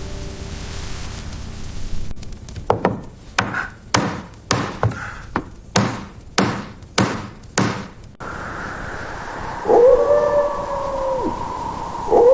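Dog barking about ten times in quick succession, then a long howl held on one pitch that drops away at its end, with a second howl starting at the very end.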